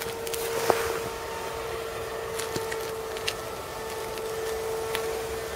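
Steady hum of an RC Bixler plane's electric motor and propeller in flight, holding one pitch throughout. A few sharp clicks sound over it, the loudest about a second in.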